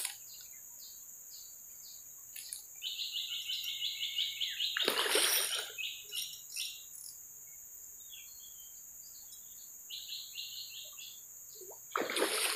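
A hooked patin catfish splashing at the river surface in a short burst about five seconds in and again near the end. Around the first splash comes a fast run of high clicking chirps, several a second.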